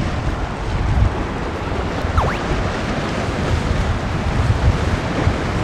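Strong wind buffeting the microphone in gusts over the wash of sea waves breaking on a rocky shore.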